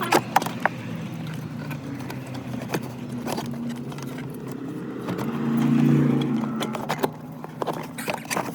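Sharp clicks and taps of an engine computer's metal case being worked open with hand tools, over a steady engine hum that swells louder about six seconds in.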